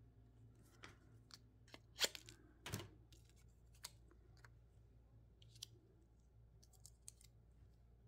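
Faint handling of small fabric heart embellishments and their clear plastic backing: a few soft clicks and rustles, the loudest about two seconds in and again just under three seconds in.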